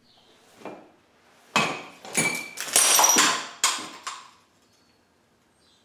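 A coffee cup falling and breaking: a light knock, then a clatter of about five sharp, ringing impacts over two to three seconds as it smashes and the pieces bounce.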